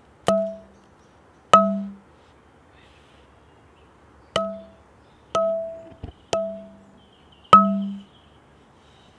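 A hard object struck six times at uneven intervals, each hit ringing briefly with the same clear pitch. A small low thump comes a little after the sixth second.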